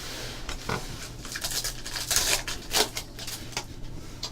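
Football trading cards and a pack being handled: a run of irregular dry rustles and slides as the cards are flipped and moved against each other.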